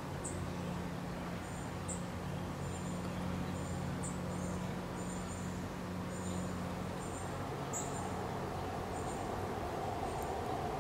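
Outdoor ambience: short, high, paired chirps repeat about twice a second over a steady low hum. A faint higher hum comes in after about eight seconds.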